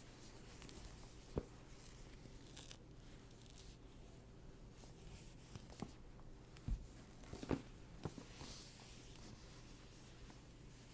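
Unboxing sounds from an Apple TV box: its packaging rustling and tearing softly, with several sharp taps and knocks, the loudest a low knock just past the middle.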